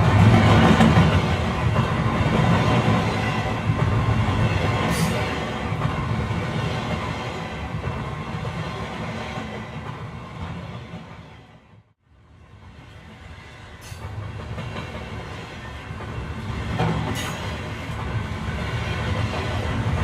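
Train running along the track, a steady rumble of wheels on rail. The sound fades away to silence about twelve seconds in, then builds back up, with a few brief high-pitched squeals along the way.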